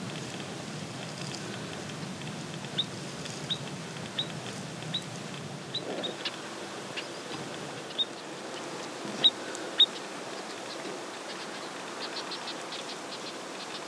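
Short, sharp high-pitched animal chirps repeated about once every three-quarters of a second, two of them louder, then a quicker run of fainter chirps near the end, over a steady outdoor rushing noise.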